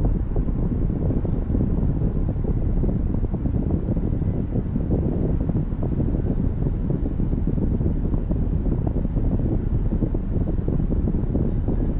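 Steady low rumble of a car driving, tyre and wind noise with no distinct events.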